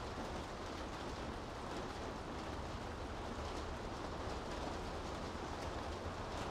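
Steady rain on city streets: a constant hiss over a low rumble, with a few faint ticks of drops now and then.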